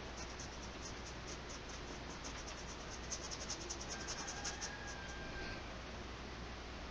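Nylon flat brush dabbing and scrubbing acrylic paint onto the painting surface: a faint run of short, quick scratchy strokes, busiest about three to four and a half seconds in, over a steady low hum.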